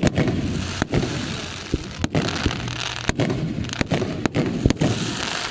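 Aerial fireworks show with shells bursting close overhead: a rapid run of sharp booms, about two a second, with crackling in between.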